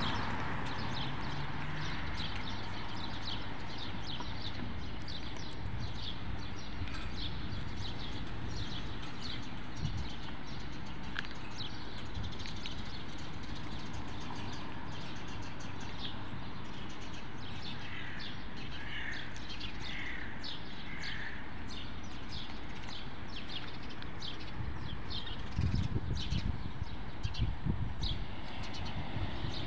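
Small birds chirping repeatedly over a steady hum of distant traffic, with a run of four lower call notes in the middle. Low rumbles come in near the end.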